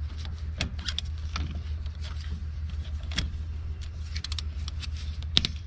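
Scattered metallic clicks and clinks of a wrench or ratchet working on the 10mm bolts of a VVT solenoid, over a steady low hum.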